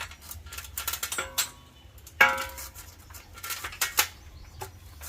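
A series of clinks and knocks of hard objects, with one louder ringing metallic clang about two seconds in.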